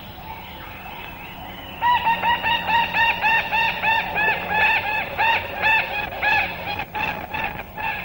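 A flock of long-tailed parakeets calling noisily: a fast run of loud, repeated calls, about four a second, which starts about two seconds in over softer background bird calls.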